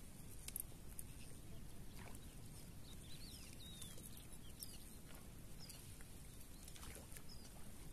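Small birds chirping in short, quick calls that sweep up and down in pitch, over a low wind rumble on the microphone.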